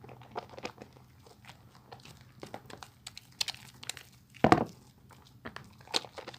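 Bar of soap being lathered: irregular wet crackles and squishes of foam, with one louder squelch about four and a half seconds in.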